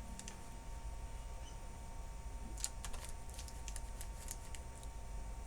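Scattered light clicks of a computer keyboard and mouse, in small clusters, while an order page is looked up.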